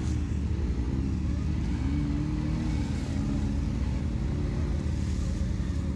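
Side-by-side UTV engine running at low revs while rock crawling, its pitch rising and falling slightly with the throttle.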